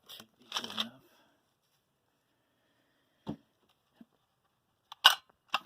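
A few scattered knocks and clicks of engine parts being handled, with a sharp, loud click about five seconds in.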